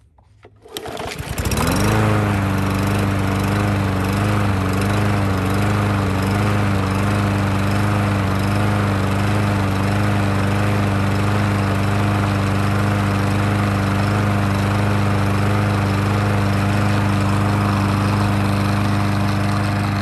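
Briggs & Stratton single-cylinder engine on a push lawn mower starting about a second in and running steadily at speed. Its pitch wavers with a slight rhythmic surge for the first few seconds, then settles; the surge had been traced to a wrong carburetor jet, now replaced with a new one, and is just a little bit of a surge that clears up.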